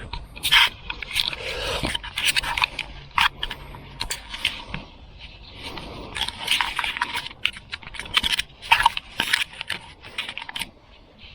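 Shirt fabric rubbing and scraping against the camera's microphone, with many irregular scrapes, rustles and knocks.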